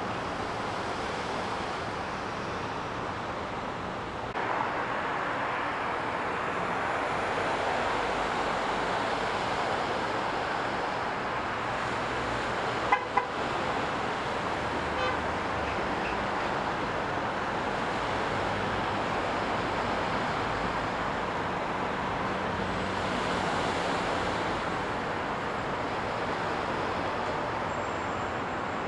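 Steady outdoor background hiss and low rumble, rising a step in level about four seconds in, with two sharp clicks near the middle.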